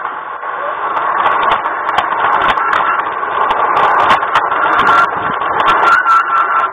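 LGB garden-scale model train running along the track, heard close up from on board: a steady rattle of the wheels on the rails with a faint motor whine and scattered short clicks.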